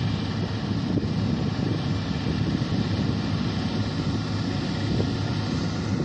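Combine harvester running steadily while cutting wheat, its engine and threshing machinery a continuous drone, heard along with wind buffeting the microphone.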